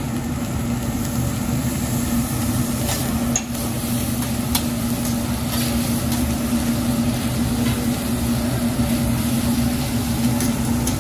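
Fried rice sizzling on a hot steel hibachi griddle while a chef stirs and chops it with metal spatulas, with a few sharp clicks of the spatulas on the steel. A steady low hum runs underneath.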